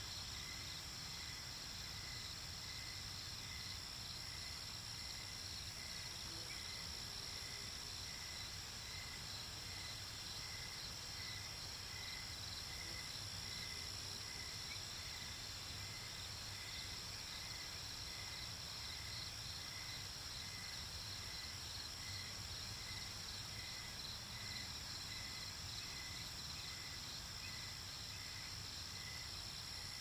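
Crickets chirping in a steady night chorus: a continuous high trill with a slower, evenly repeating lower chirp beneath it.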